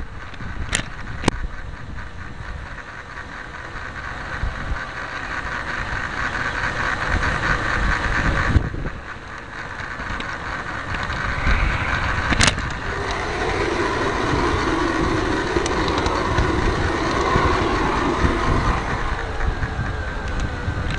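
Bachmann model rail truck running along garden railway track, its small electric motor and gears humming steadily. It is heard from right on top of the truck. A few sharp clicks come as the wheels cross rail joints or points, twice near the start and once about two-thirds through.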